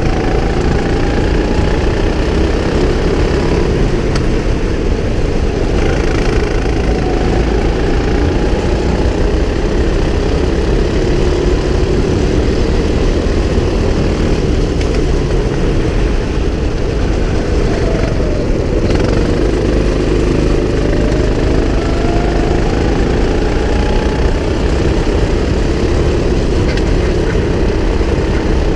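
Go-kart engine running hard through a lap, loud and steady, its pitch falling as the kart slows about two-thirds through and climbing again as it accelerates.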